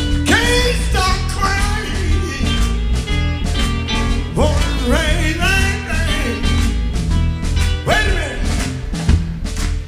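Live electric blues band playing, with electric guitars, bass and drums. A lead line of rising, sliding notes comes in about every four seconds.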